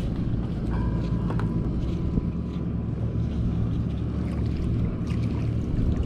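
A steady low rumble, with a faint thin high tone for about two seconds near the start.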